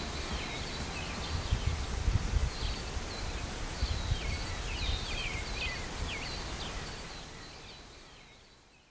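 Countryside ambience: several birds calling with short chirps and downward-sweeping whistles over a gusty low rumble of wind, the whole fading out over the last two seconds.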